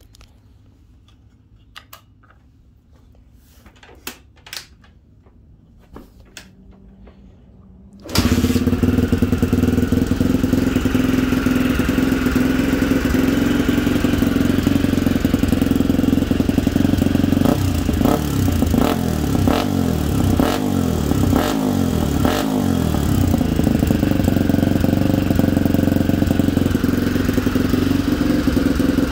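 A 1987 Honda XL250R's single-cylinder four-stroke engine, with a SuperTrapp exhaust, is kicked over from cold. After a few faint clicks and knocks it catches suddenly about eight seconds in, and then runs steadily and loud. It is revved a few times in the middle, then settles to an idle that is a little high and needs adjusting.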